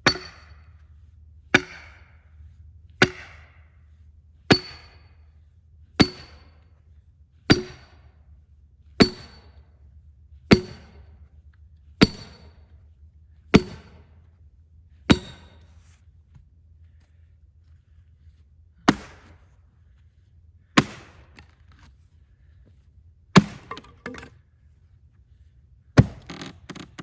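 A hammer driving a splitting wedge into a cedar log with sharp, ringing blows, about one every second and a half for eleven strikes. After a pause come four slower blows, the last two followed by a brief crackle.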